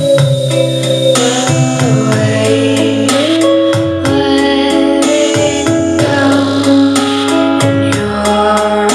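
Live band music: sustained synthesizer/keyboard chords and electric guitar over a steady, regular percussive beat, with a woman singing into a microphone.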